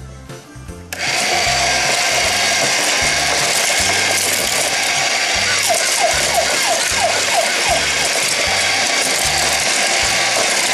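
Small battery toy motor and plastic gearbox of a Plarail toy whirring loudly and steadily, starting about a second in, with a few short chirps partway through. Background music plays underneath.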